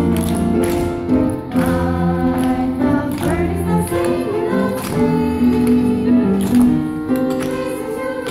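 Music with a group of voices singing together in chorus.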